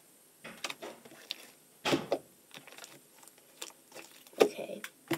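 Purple slime being stretched and kneaded by hand, giving a scatter of soft sticky clicks and squelches, loudest about two seconds in and again near the end.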